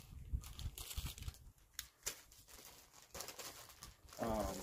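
Paper rustling and light plastic clicks as a manual and papers are tucked into a plastic pistol hard case.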